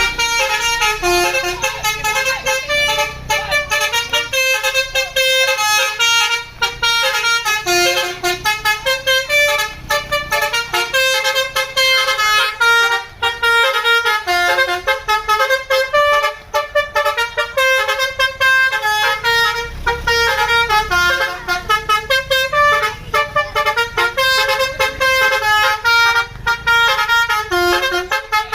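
Bus 'telolet' multi-tone air horn playing a fast melody of short stepped notes, over and over without a break.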